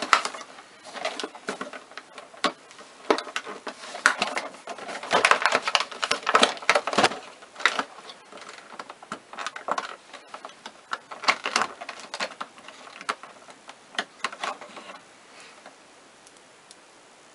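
Clicks, taps and crinkly rustling of handling packaging as a mini nail polish bottle is worked out of a cardboard advent calendar box and turned in the hands. The noises come in quick irregular runs and die away about fifteen seconds in.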